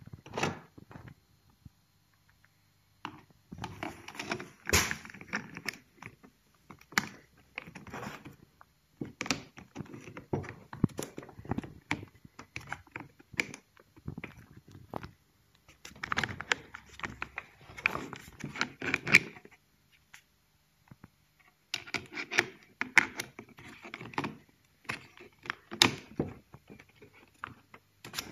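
Clicks, knocks and scrapes of hard plastic from handling a Bosch cordless drill/driver and its FlexiClick chuck adapter in a plastic tool case. They come in clusters with short pauses between.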